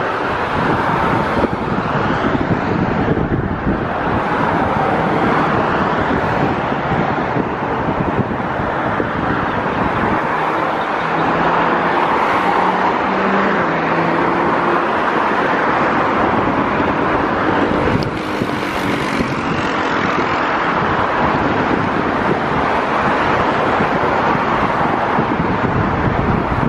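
Airbus A321 jet engines during the landing rollout: a loud, steady rushing roar that holds at much the same level throughout.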